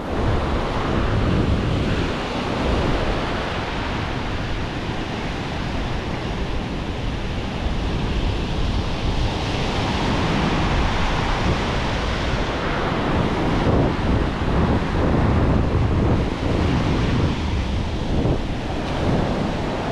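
Ocean surf breaking and washing up a sandy beach, swelling louder twice as waves rush in, with wind rumbling on the microphone.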